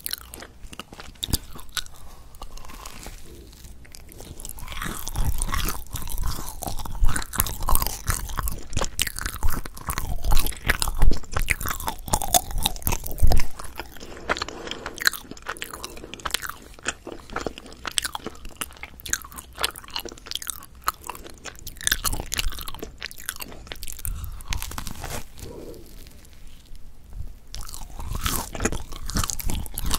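Close-miked biting and chewing of a Korean potato bread (gamja-ppang), a stream of small crunching crackles and mouth sounds, loudest from about five seconds in to about halfway and again near the end.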